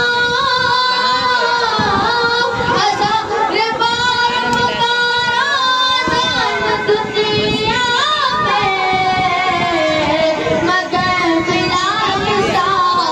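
A boy singing a naat into a microphone, holding long, drawn-out notes that slide between pitches.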